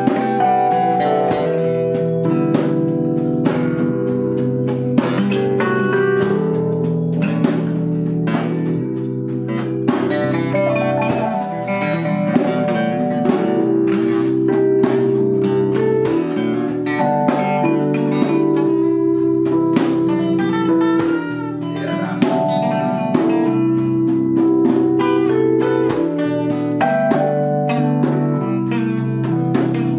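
Instrumental music: an acoustic guitar is strummed and picked over held keyboard chords, playing on without a break.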